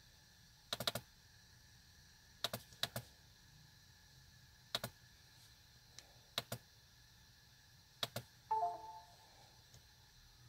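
Sharp clicks of a laptop's pointer buttons, some single and some in quick doubles, every second or two. About eight and a half seconds in, just after a click, a short computer chime sounds as Windows uninstalls the USB device.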